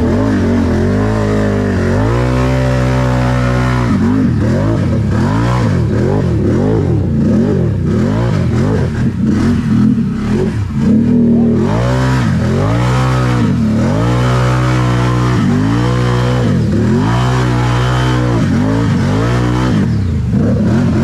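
Can-Am 1000R ATV's V-twin engine revving up and down over and over, about once a second, as it churns through a deep mud hole in two-wheel drive. The revving turns rougher and uneven about halfway through.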